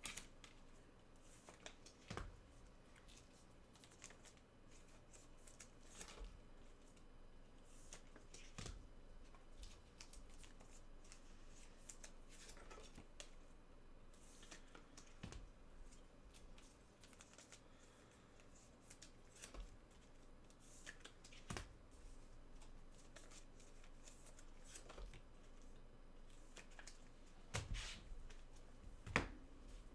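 Faint, scattered rustling and light clicks of trading cards being handled, with a few sharper clicks near the end.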